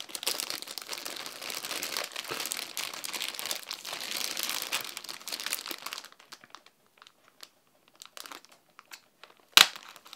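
Plastic packaging bag crinkling as it is handled and picked at along its heat-sealed seam with a utility knife; the crinkling thins to a few scattered crackles about six seconds in. A single sharp click comes near the end.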